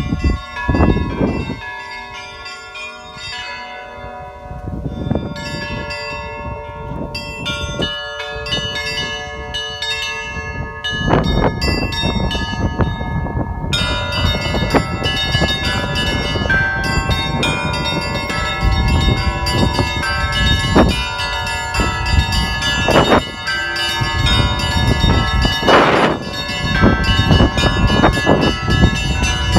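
A set of Russian church bells rung together: small high bells chime quickly over the long ringing of larger bells. A big bell gives heavy strikes every few seconds, and the high chiming grows thicker about halfway through.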